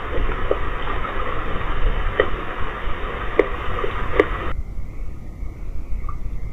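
Steady hiss and low rumble from an outdoor CCTV camera's microphone at night, with a few short sharp chirps. The sound drops abruptly to a quieter, duller hiss about four and a half seconds in, where the recording is cut.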